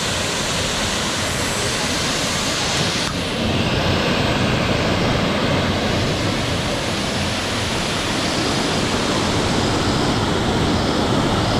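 Steady rushing of a waterfall that is running on low flow, a little louder from about three seconds in.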